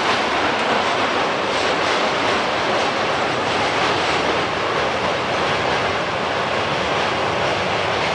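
Train crossing a steel truss railway bridge overhead: a steady, loud rolling rumble and clatter of wheels on the steel span.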